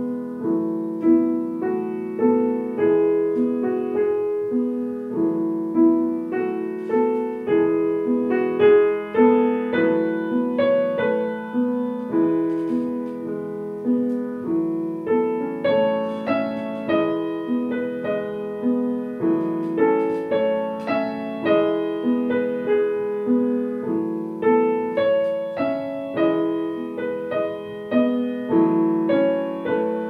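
Grand piano playing solo, a steady repeating pattern of notes under a melody.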